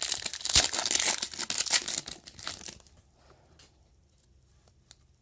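Plastic wrapper of a Panini Status basketball card pack being torn open and crinkled by hand. It makes a loud, dense crackle for a little under three seconds, followed by a few faint ticks as the cards are handled.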